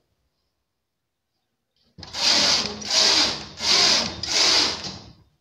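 Knitting machine carriage pushed back and forth across the needle bed four times after a couple of seconds of silence, each pass a rasping sweep of under a second: knitting four rows.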